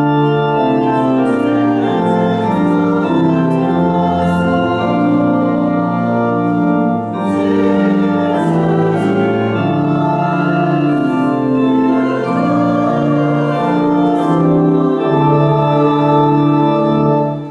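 Church organ playing a slow passage of held chords that fades away near the end.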